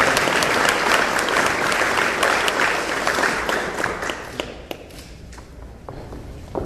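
Audience applauding in a hall, the clapping dying away after about four seconds into a few scattered claps.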